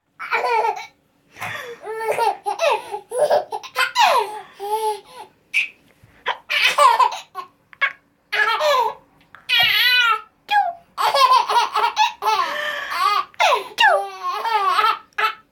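A baby laughing hard, high-pitched belly laughs in repeated fits with short pauses between them, set off by his mother's sneezes.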